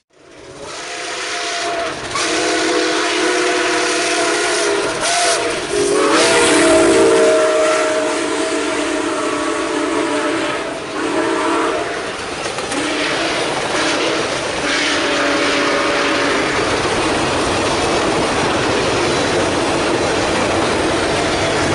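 A passenger train passing close by: its horn sounds a chord of steady tones in long blasts through the first twelve seconds and once more briefly about fifteen seconds in, while the vintage passenger cars rush past with wheels clacking over the rails.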